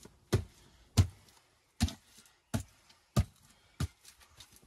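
A work boot stamping down on the earth and stones of a trench floor: six heavy thuds, about one every two-thirds of a second, compacting the ground for the base of a dry stone wall.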